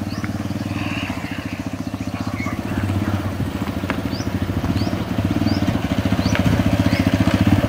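Motorcycle engine running at low speed as the bike rides slowly closer, its fast, even firing beat growing gradually louder.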